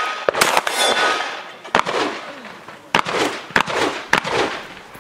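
Shotgun fired in a practical shooting stage: about five loud shots at irregular intervals, each trailing off in a long echo. In the first second a short metallic ringing follows a shot, from a struck steel target.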